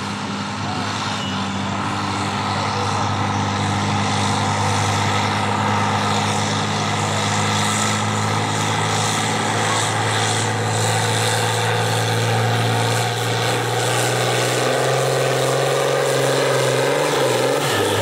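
John Deere farm tractor's diesel engine pulling hard under load as it drags a weight-transfer pulling sled, a loud steady drone. In the last few seconds the engine note shifts and a higher whine rises.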